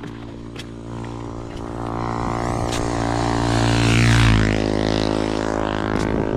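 A motor vehicle passes by with its engine running steadily. It grows louder to a peak about four seconds in, then begins to fade.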